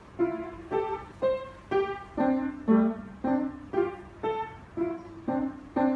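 Upright piano played slowly, one note at a time in a simple even melody of about two notes a second, each note sounding clearly and then fading.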